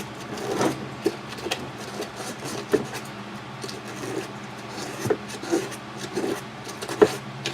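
Sandpaper rubbed by hand over the plastic of a subwoofer box in short, irregular scratchy strokes, roughing up the surface before filling it with two-part bonder. A few sharp knocks come through, the loudest near the end.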